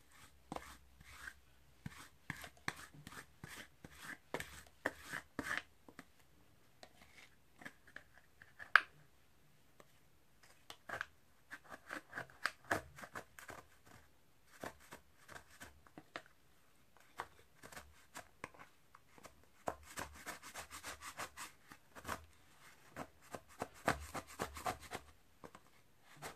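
Plastic spatulas chopping and scraping an Oreo ice-cream mixture on a chilled metal ice pan: irregular taps and scraping strokes, with one sharp click about a third of the way in and quick bursts of scraping in the second half. Near the end the mixture has frozen hard and is being scraped up.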